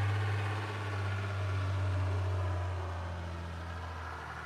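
1994 Dodge Ram's 12-valve Cummins 5.9 L inline-six turbo-diesel running as the pickup drives slowly through deep snow: a steady low diesel hum that grows quieter near the end.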